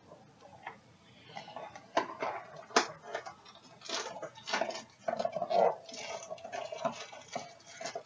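A Funko blind-box package being handled and torn open by hand: irregular clicks, taps and crinkling of cardboard and packaging, starting about a second in.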